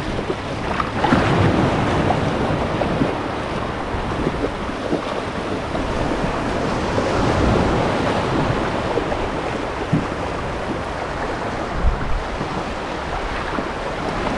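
Shallow seawater splashing around a wader's legs and a kayak hull as the kayak is hauled through the shallows, over the steady wash of small surf. Wind buffets the microphone.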